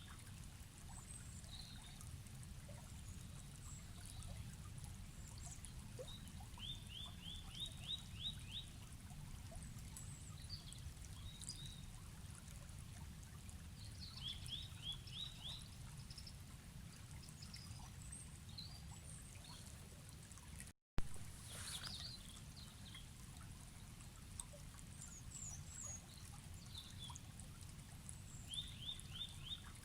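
River water running with a steady low rush, with birds calling over it: short series of five or six quick rising notes, repeated several times, and scattered high chirps. About two-thirds of the way through, the sound cuts out for a split second and returns with a sharp click.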